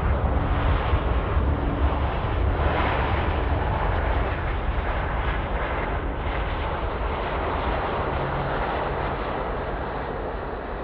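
Airbus A350-900's Rolls-Royce Trent XWB engines running in reverse thrust during the landing rollout: a loud, steady rush of jet noise over a deep rumble, easing off slowly over the last few seconds.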